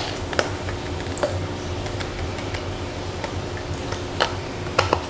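Steady low hum of room tone with a few scattered light clicks and taps.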